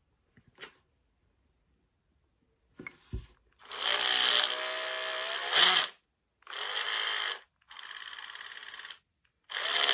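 Repaired cordless drill's brushed electric motor run in short trigger pulls: one long run about four seconds in, winding up in pitch, then three shorter bursts, the third quieter. It runs again now that the broken motor brushes are dealt with, though fins of its internal cooling fan are broken.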